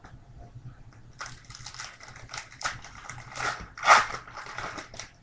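Foil trading-card pack wrapper crinkling and tearing as it is opened by hand. It is a run of crackling rustles, loudest about four seconds in.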